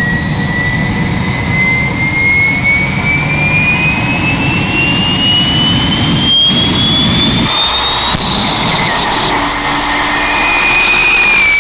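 A high engine whine climbing steadily in pitch for about eight seconds and then levelling off, over a continuous low rumble, typical of a jet turbine spooling up.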